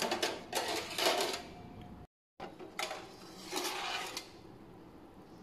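Countertop electric oven's door opened and its foil-lined metal baking tray pulled out: a run of metallic clatters and rattles, then a softer scraping rustle about three and a half seconds in.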